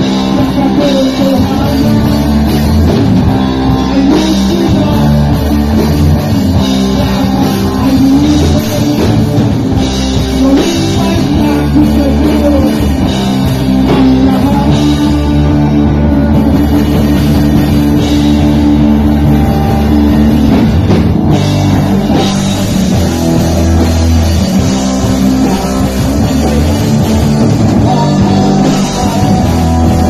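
Live rock band playing loudly: electric guitars and bass through amplifiers over a drum kit, with a singer on the microphone.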